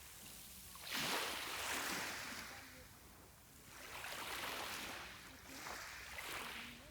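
Small sea waves washing onto the shore, each surge swelling and fading away: a sudden one about a second in, another about four seconds in, and a smaller one near the end.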